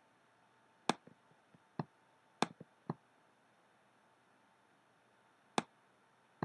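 Several sharp single clicks of a computer mouse with quiet between them, a cluster of them in the first three seconds and two more near the end.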